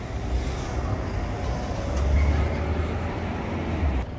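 Street traffic: a motor vehicle passing close with a low rumble, loudest in the second half, over general city street noise.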